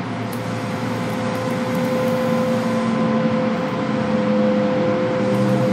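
Kintetsu electric train running, heard inside the passenger car: steady rail and wheel noise with a steady motor hum, slowly getting louder.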